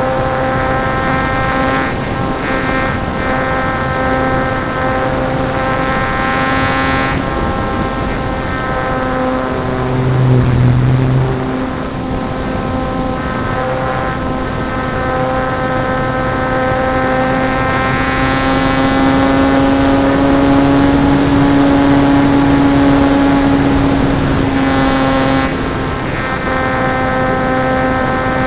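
Electric motor and propeller of a ParkZone Stinson Reliant RC plane in flight, heard from a camera mounted on the plane: a steady whine. It dips briefly with a low rumble about a third of the way in, then runs louder and slightly higher for several seconds past the middle as the throttle changes.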